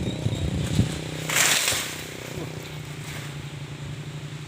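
Chainsaw engine idling steadily, with a brief loud hiss about a second and a half in.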